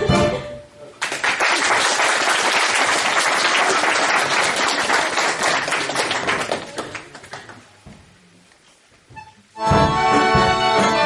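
Traditional Macedonian folk music breaks off just after the start, and the audience applauds for about five seconds. The applause fades into a short lull, then the music of the next song starts abruptly near the end.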